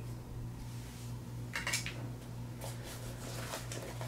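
Small clinks and rustles of gear being handled: a small flashlight put down with a light clink about one and a half seconds in, then a hand rummaging in a nylon backpack, over a steady low hum.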